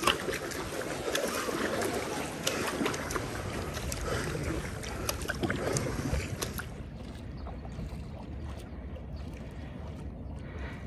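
Double-bladed kayak paddle strokes splashing into calm river water, with short splashes and drips from the blades as the surf ski glides along. About seven seconds in the sound turns quieter and duller.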